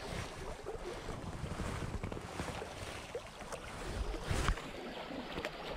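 River current flowing, with wind buffeting the microphone and a low thump about four seconds in.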